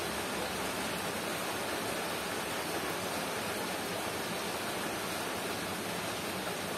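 Steady, even rushing noise with no distinct knocks, crinkles or tones.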